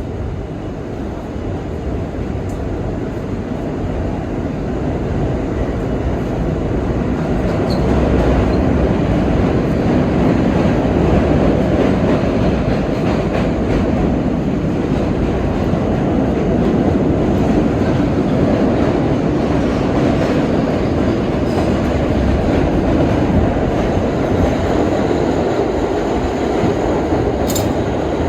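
R32 subway car running through the tunnel, heard from inside the car: a steady rumble of wheels on the rails that grows louder over the first several seconds as the train picks up speed, then holds steady.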